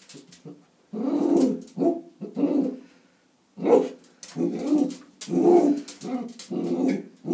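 A dachshund giving a run of about ten short, low-pitched barks and grumbling calls, with a short pause about three seconds in.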